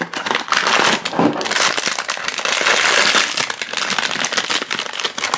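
Foil bag of a blind-box vinyl figure crinkling and tearing as it is pulled from its small cardboard box and ripped open by hand, a dense crackle with many sharp clicks.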